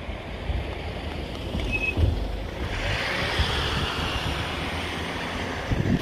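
Wind buffeting the microphone outdoors, with a swell of rushing noise about three seconds in that fades over the next two seconds.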